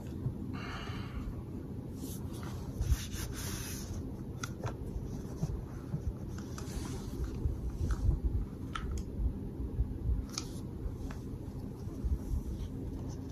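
Handling noises from an IWI Uzi pistol being reassembled on a towel: cloth rustling and scattered light clicks and scrapes of the gun's parts, over a steady low hum.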